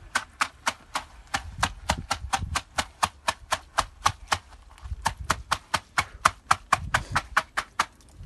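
A straightedge screed being sawn back and forth across wet concrete, with rapid, evenly spaced sharp clicks, about four a second, and a low scraping that swells twice.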